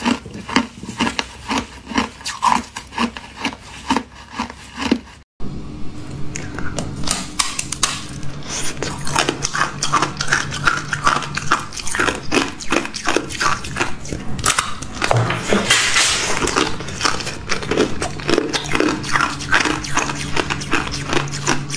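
Ice being chewed and crunched close to the microphone, a rapid run of crisp crunches. After a brief cut about five seconds in, crunching of granular shaved ice goes on over a faint low steady hum.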